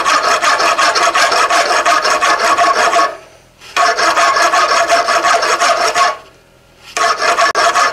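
A hand file rasping loudly across red-hot forged steel (1-inch sucker rod), filing its top flat. It goes in three long runs of scraping, with short pauses about three seconds in and about six seconds in.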